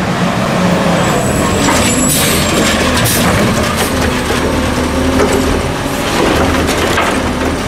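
Automated side-loader garbage truck running as it pulls up, with short air-brake hisses about two and three seconds in, then its hydraulic arm working to grab and lift a wheeled trash cart over the hopper, with mechanical clanks over a steady engine hum.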